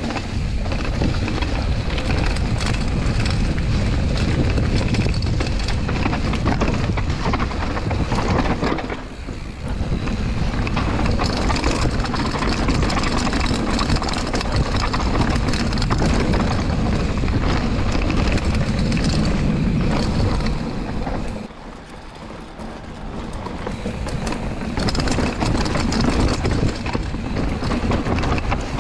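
Mountain bike descending a rough dirt and stone-paved woodland trail: steady tyre rumble and wind rushing over the microphone. The noise dips briefly about nine seconds in and again for a few seconds a little past twenty seconds.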